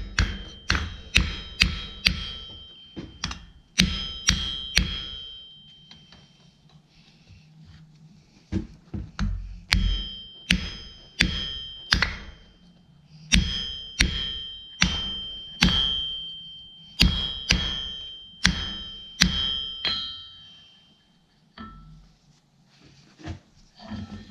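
Blacksmith's hammer striking hot square iron bar on an anvil, about two blows a second, each blow followed by a bright ring from the anvil. A run of blows, a pause of a few seconds, then a longer run, ending in a few lighter taps: forging and flattening the end of a door-handle bar.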